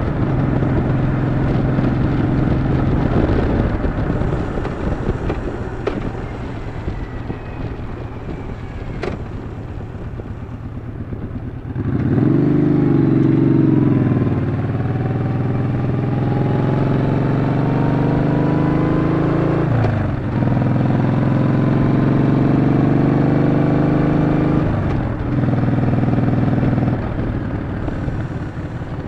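Yamaha XV950 Bolt's air-cooled V-twin under way: the engine eases off and runs quieter for several seconds, then picks up sharply about twelve seconds in and climbs through several gear changes before settling near the end.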